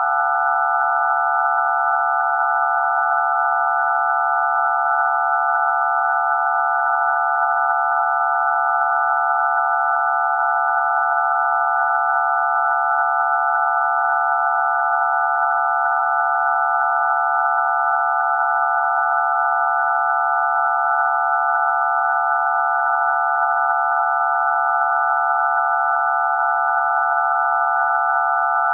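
DTMF telephone keypad tones for digits 0 to 9 sounded all at once as one steady, loud chord of several pure tones, unbroken.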